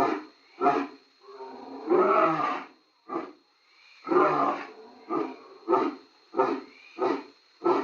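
Lion roaring sound effect: a few long roars, then a run of shorter grunting calls, about one every 0.6 seconds.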